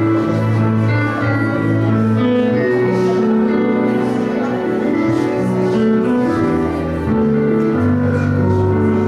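Instrumental music of sustained, held chords that shift every second or so, with no singing.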